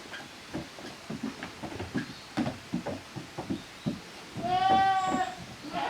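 Young kid goat bleating once, a clear call of under a second about four and a half seconds in, with another bleat starting at the very end. Before it come scattered light knocks and taps.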